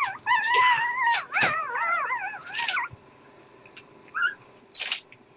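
Dog whining in high, wavering tones, a near-continuous run of whines for the first three seconds and one short whine later, mixed with a few short breathy puffs.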